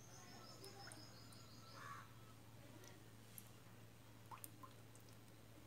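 Near silence: room tone with a faint steady low hum, a brief faint high chirping trill in the first two seconds, and a few faint light ticks about four and a half seconds in.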